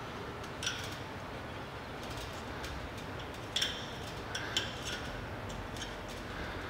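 A dog's claws and paws tapping and clanking on the rungs of a metal ladder as it climbs, in a scatter of sharp, ringing metallic taps. The loudest comes about three and a half seconds in.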